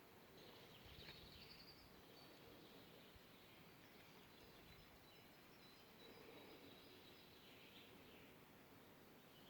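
Faint forest ambience: a low even hiss with a few distant bird calls now and then, the clearest about a second in.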